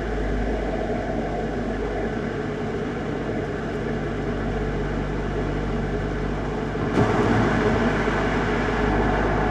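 Volkswagen Golf GTI mk7.5's turbocharged 2.0-litre four-cylinder running on the move, with steady road and tyre noise. About seven seconds in there is a click and the sound gets louder.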